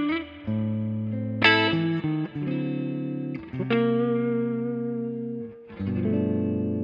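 Epiphone Les Paul 100 electric guitar played through an amplifier: about five chords, each struck sharply and left to ring out before the next.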